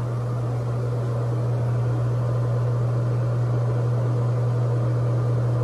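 Ventilation fan running: a steady low hum with an even rushing noise over it.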